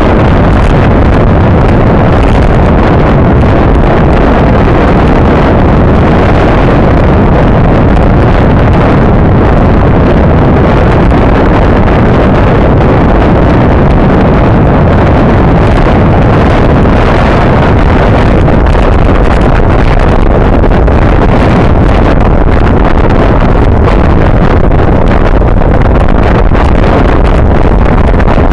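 Loud, steady wind rushing over the microphone of a front-mounted camera on a bicycle ridden at race speed.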